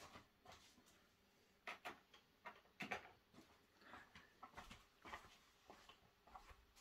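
Near silence broken by faint, scattered clicks and light knocks, like small objects being handled.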